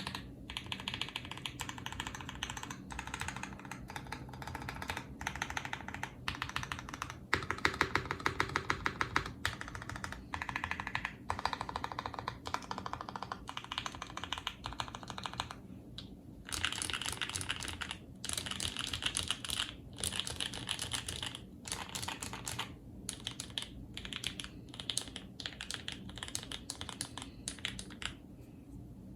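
Typing on a Mode Eighty mechanical keyboard fitted with lubed and filmed C3 Banana Split linear switches, on a stack-mounted aluminium plate without plate foam, with Buger x Hammerworks C64 keycaps. It comes as rapid runs of keystrokes broken by short pauses, fastest and loudest from about seven to ten seconds in.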